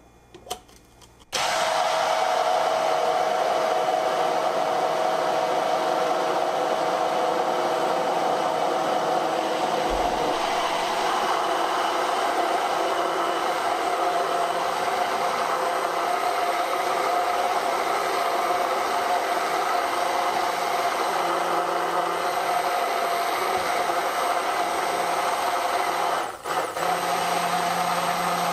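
KitchenAid 2-speed hand blender running at speed 2, whipping cold heavy cream in its plastic beaker: the motor switches on about a second in and runs with a steady whine. It briefly dips near the end, then runs on.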